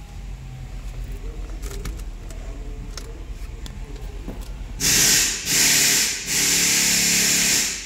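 Infiniti engine idling with a low, steady hum just after being restarted following an engine-computer software update. About five seconds in, a loud hissing rush comes in three spells and stops abruptly.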